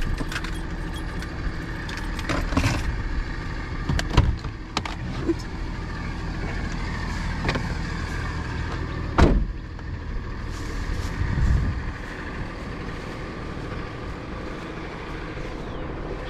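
Car engine running steadily at low speed while the car is being parked, with a few short knocks, the loudest about nine seconds in.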